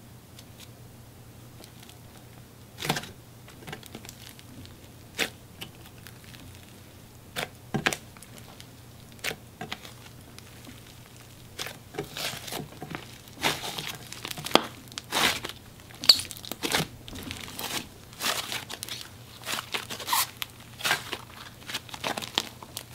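Glossy slime with a large amount of polymer clay being squished and folded by hand, giving sticky, sizzly crackling clicks and pops. A few come singly at first, then they come thick and fast from about halfway.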